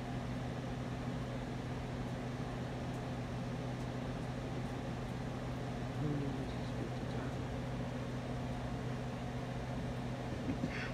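Spirit box radio sweep giving a steady hiss of static over a low hum, with a brief fragment that dips in pitch about six seconds in.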